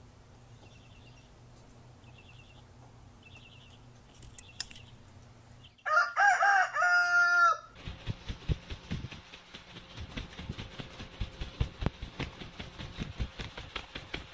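A rooster crows loudly about six seconds in: one call of under two seconds that rises and then holds its pitch. After it comes a run of rapid, uneven fluttering thumps from a blue-and-gold macaw beating its wings.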